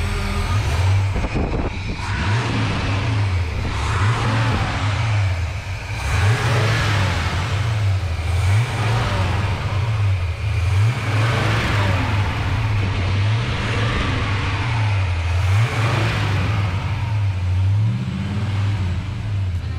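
Chevrolet 350 small-block V8 being revved again and again, its pitch climbing and dropping back about every second and a half.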